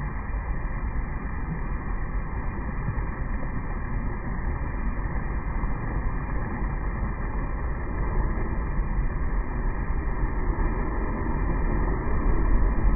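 Ocean waves washing in as a steady rushing noise with a deep low rumble, getting a little louder near the end.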